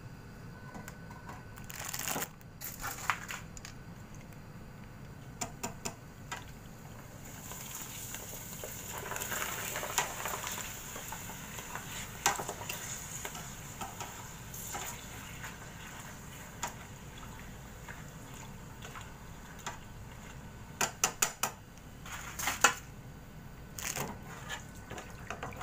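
Papadums deep-frying in hot oil, sizzling and crackling, the sizzle swelling about a third of the way in, with scattered sharp clicks and clacks.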